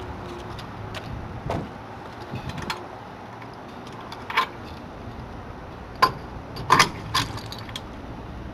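Hard clinks and knocks of a spray bar extension being fitted onto a truck-bed sprayer: scattered sharp taps, the loudest a cluster about two-thirds of the way through.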